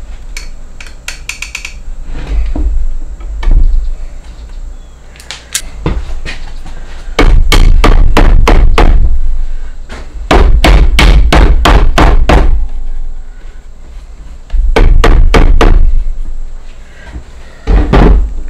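Claw hammer striking nails in a wooden rocking chair frame, in several runs of rapid blows, about four a second, with pauses between, and a few lighter taps before the first run.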